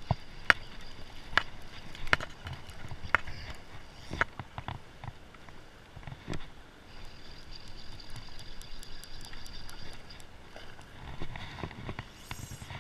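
A fly reel clicking as it is cranked and handled close to the microphone. Sharp clicks come about once a second, then a run of fast ticking starts about seven seconds in as line is reeled in.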